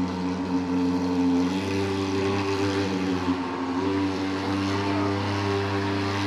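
Portable thermal fogging machine running with a steady engine drone as it pumps out white fog, its pitch shifting slightly a couple of times.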